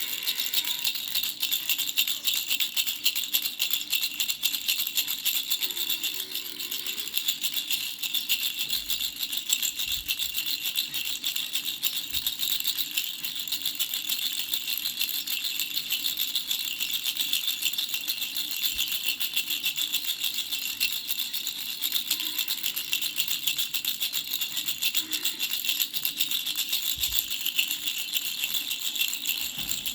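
Baby rattle shaken without pause, a fast, even rattling.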